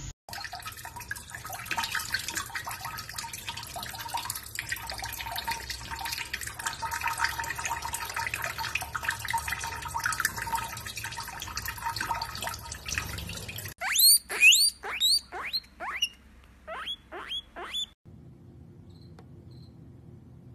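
Tap water running from a kitchen faucet onto cupped hands over a steel sink, splashing steadily. About fourteen seconds in it gives way to a quick run of about ten high, rising squeaks, then only a faint low hum.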